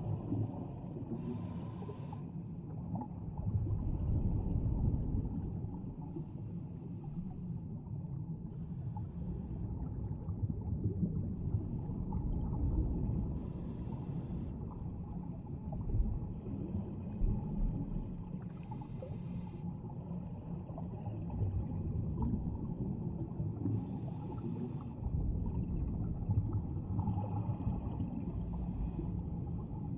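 Underwater scuba breathing: regulator exhaust bubbles burst about every four to five seconds over a steady low underwater rumble.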